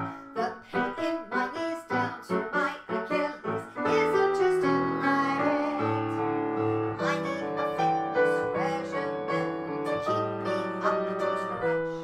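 Grand piano accompaniment: short, detached chords for about the first four seconds, then held chords, with women singing a comic cabaret song over it.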